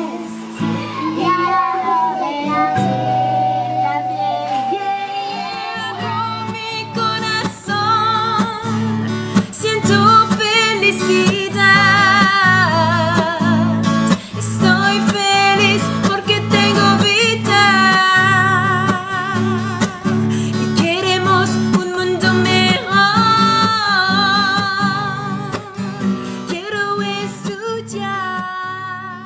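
Singing voices over a strummed acoustic guitar; the song fades out near the end.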